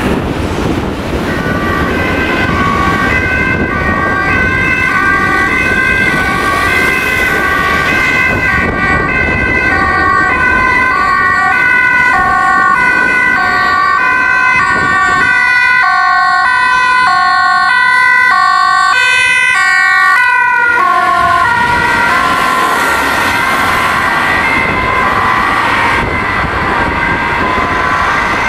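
Dutch rapid-responder ambulance's two-tone siren alternating high and low notes, strongest through the middle. After about twenty seconds it drops lower in pitch and fainter, leaving traffic noise.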